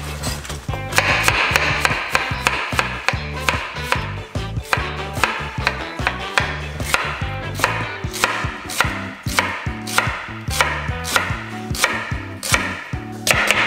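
Chef's knife shredding cabbage on a bamboo cutting board: a steady run of sharp chops, about two to three a second, the blade knocking through the leaves onto the wood. A low background music bed runs underneath.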